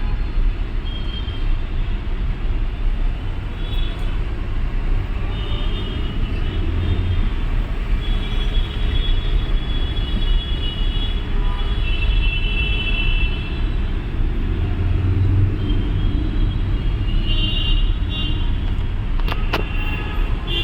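Crowded slow-moving city traffic: steady engine and road rumble. Short high-pitched tones come and go over it, and a couple of sharp knocks sound near the end.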